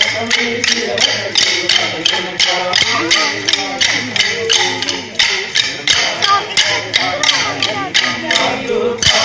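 Kolkali: many pairs of short wooden sticks clacked together by the dancers in a steady rhythm, about three to four sharp clacks a second, with the men's voices singing the accompanying song underneath.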